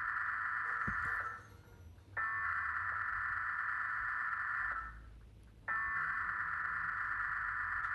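Slowed-down TV Emergency Alert System test signal: long electronic data bursts of the alert header, each about two and a half seconds, repeating with pauses of about a second.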